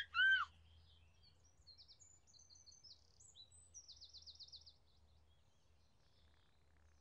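A baby's short giggle, then birds chirping high and thin, ending in a quick trill.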